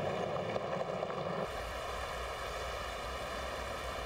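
A four-wheel-drive vehicle driving on a gravel road, tyres and engine making a steady noise; about a second and a half in it changes abruptly to a steady low rush of river water.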